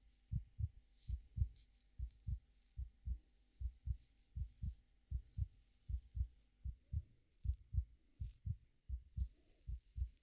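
A heartbeat thumping in a steady rhythm of low double beats (lub-dub). Soft rustling of hair being stroked and played with comes and goes over it.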